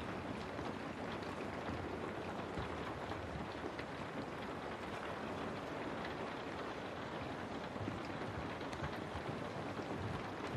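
Steady heavy rain: a dense, even hiss with scattered small drop ticks.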